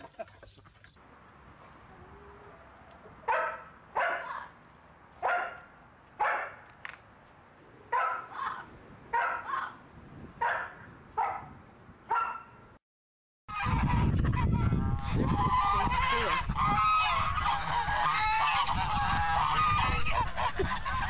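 Animal calls: one animal gives about a dozen short calls, roughly one a second. After a brief cut, a dense, loud chorus of many overlapping calls follows.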